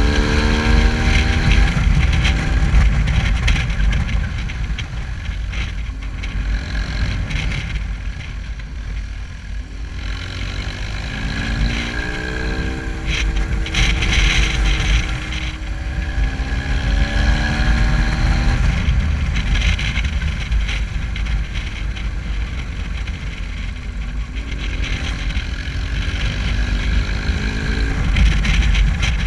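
Motorcycle engine running under way, its pitch rising and falling several times as the throttle is opened and eased, under a heavy low rush of wind noise on the camera microphone.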